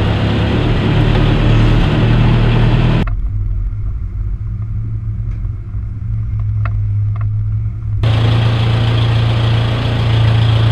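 Engine of a homemade airplane-bodied car idling with a steady low hum, heard inside its stripped metal cab. For a few seconds in the middle the sound turns quieter and duller, with a few light clicks.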